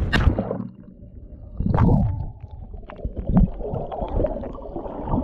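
A splash as a camera goes into seawater, then muffled underwater rumbling and bubbling from a swimmer's kicking legs.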